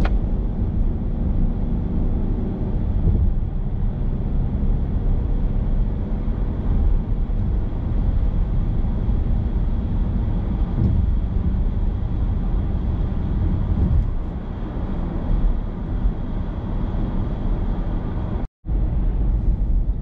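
Steady road and engine noise inside a moving car's cabin, broken by a moment of silence near the end.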